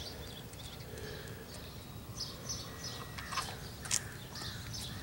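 Faint outdoor ambience of small birds chirping over a low steady background rumble, with two soft clicks between three and four seconds in.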